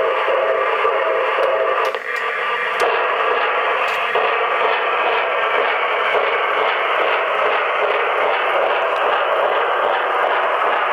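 Weaver brass O-gauge PRR G5 ten-wheeler's onboard QSI sound system playing steady steam-locomotive running sound through its small speaker as the model runs, dipping briefly about two seconds in.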